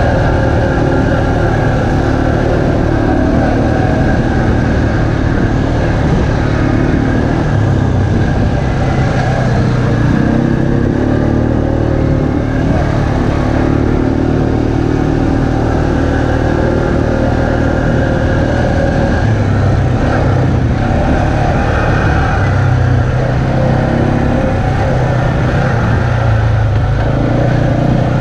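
ATV engine running under way on a dirt trail, heard on board the quad, its note rising and falling as the throttle changes.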